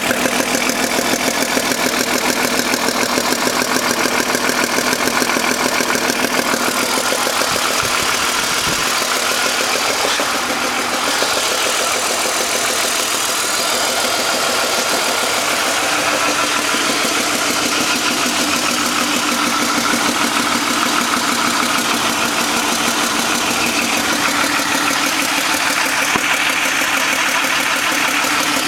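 BMW M52 straight-six engine running steadily with a fast, regular ticking-knocking in its sound: the weird noise that the owner tags as knocking and has not explained.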